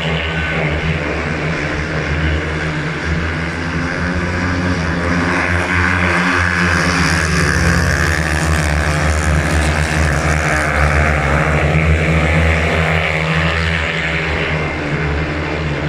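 Four 500cc single-cylinder speedway bikes racing together, their engines revving hard with the pitch rising and falling as they go into and out of the bends.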